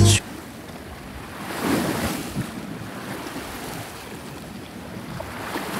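Shoreline ambience of waves washing in, with wind: a steady wash that swells about two seconds in and again near the end.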